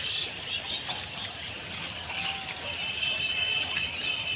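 Small birds chirping over steady outdoor background noise, with a high, even trill coming in about three seconds in.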